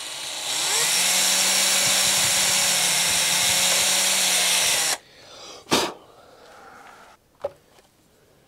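Small electric drill spinning up and running steadily for about four seconds as it bores a hole through thick plywood servo bearers, then stopping abruptly. A single sharp knock follows about a second later.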